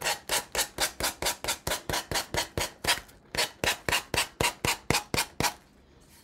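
Hand sanding with sandpaper: quick back-and-forth rubbing strokes, about four a second, stopping about five and a half seconds in. The sanding takes the excess napkin off the edges of a decoupaged craft piece.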